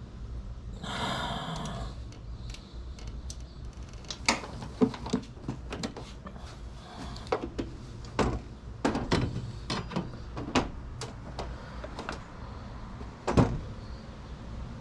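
Irregular metal clanks and clicks of a socket and wrench being worked on a nut welded onto a snapped serpentine belt tensioner bolt, with a short rushing noise about a second in and the loudest knock near the end.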